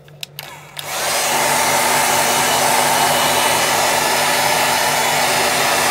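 Handheld hair dryer switched on after a couple of clicks, spinning up within about half a second and then blowing steadily to dry the decoupage glue on a canvas bag.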